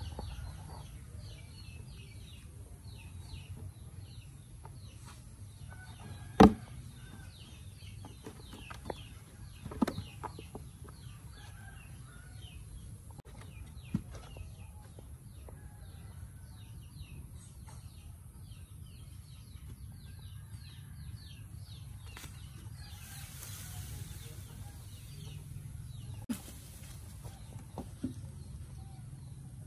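Outdoor ambience of small birds chirping in quick repeated series, broken by a few sharp knocks, the loudest about six seconds in.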